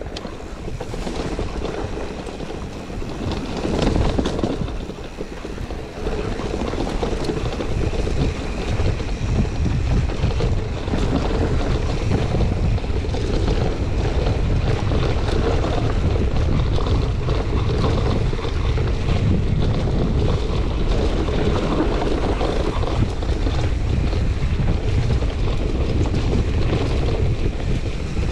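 Wind buffeting a helmet or chest-mounted GoPro Hero 9's microphone as a mountain bike descends fast, with the tyres rolling over a rough dirt trail and a steady run of small knocks and rattles from the bike. The sound grows louder at about six seconds in and then stays steady.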